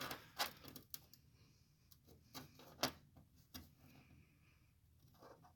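Faint, irregular clicks and light taps from small metal parts being handled.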